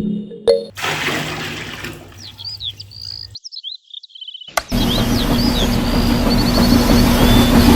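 Birds chirping over a steady rushing background, broken by a brief cut to silence; a little past halfway a small motor starts a steady hum that becomes the loudest sound, with the birds still chirping. A music track ends just at the start.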